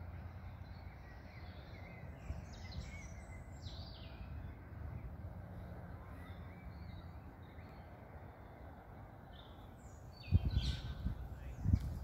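Park birds chirping and calling in short bursts over a steady low rumble. Near the end, loud irregular low buffeting sets in.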